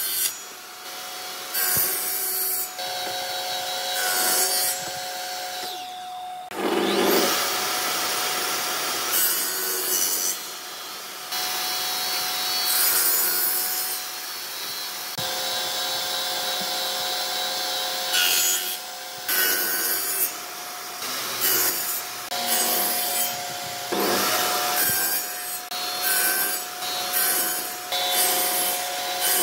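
Table saw running with a steady whine from its spinning blade, making a dozen or so short cuts one after another as angled V-notches are cut into an old railway-sleeper timber; each pass is a brief burst of noise over the whine.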